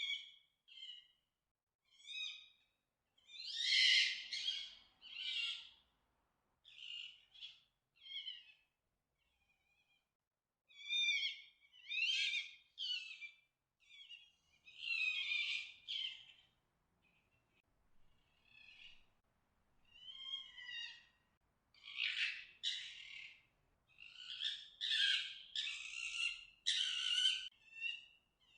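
Fox making playful calls: a loose string of short, high-pitched squeaks and whines that bend up and down, broken by harsher screeching bursts a few seconds in, midway and in a dense run near the end.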